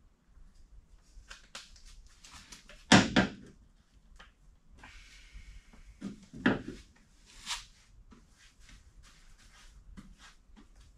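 Knocks, clicks and scraping of hand work as epoxy is poured and spread over a plywood boat floor. The loudest knock comes about three seconds in, with two more about six and a half and seven and a half seconds in.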